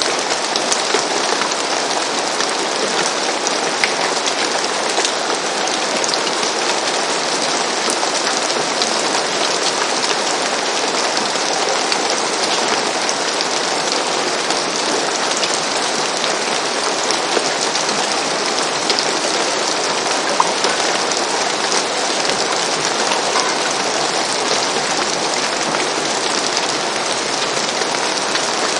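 Steady rain falling on a roof, an even dense patter with scattered individual drop taps.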